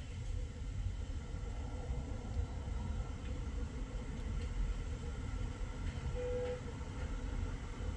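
Steady low rumble of road traffic, cars, vans and trucks moving through a busy junction. A short tone sounds briefly about six seconds in.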